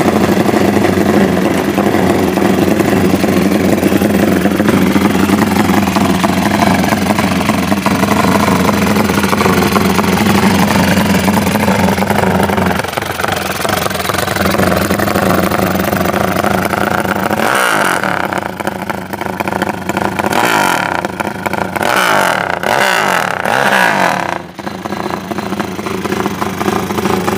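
Honda Tiger single-cylinder four-stroke motorcycle engine, just rebuilt and enlarged to 270cc and still being run in, running steadily, then revved in a series of throttle blips, its pitch rising and falling several times in the second half.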